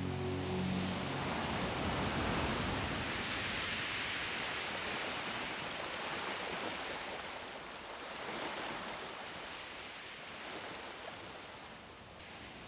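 A soft, even rushing noise like surf, swelling in the first few seconds and then slowly fading, as background music fades out about a second in.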